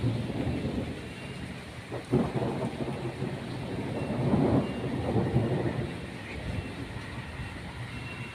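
Heavy rain falling steadily, with rolls of thunder rumbling in low swells about two seconds in and again around the middle.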